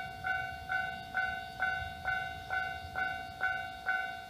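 Railway level-crossing alarm bell ringing, an electronic ding repeating evenly about twice a second, each strike fading before the next.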